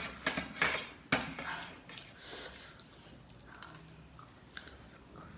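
Eating utensils clinking and scraping against a dish, several sharp clinks in the first second, then softer small clicks.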